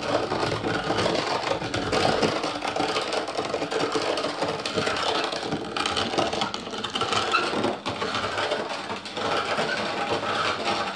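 Hand-cranked meat grinder turning, with a steady run of clicking and scraping as roasted terebinth (menengiç) paste is worked through it for menengiç coffee.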